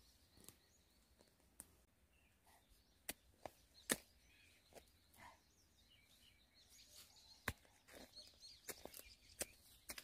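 Hand hoe chopping into wet soil and grass roots: faint, sharp, irregular strikes, roughly one a second.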